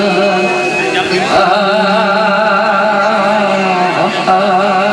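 Gujarati devotional folk singing to the mother goddess: a singer holds long notes with a steady vibrato.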